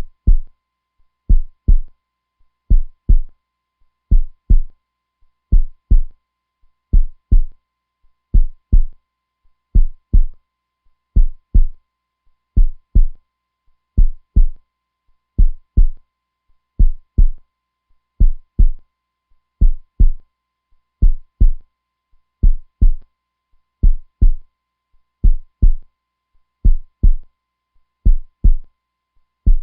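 Heartbeat sound: a steady 'lub-dub' of low double thumps, a pair about every one and a half seconds, strong and regular.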